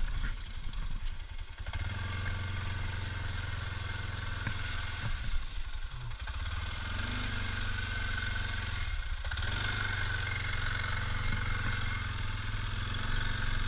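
ATV engine running steadily, its note dipping briefly a few times.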